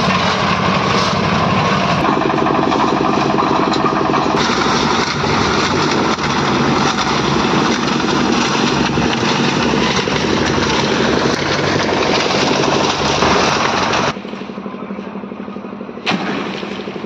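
Engine of a concrete road construction machine running loudly and steadily. The sound changes abruptly a few times and drops in level about 14 seconds in.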